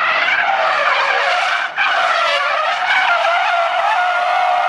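Car tyres squealing continuously through a drift: a loud, wavering high-pitched screech that breaks off briefly a little under two seconds in.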